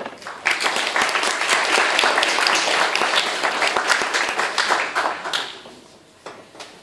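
Audience applauding: a dense patter of hand claps that starts about half a second in and dies away after about five seconds.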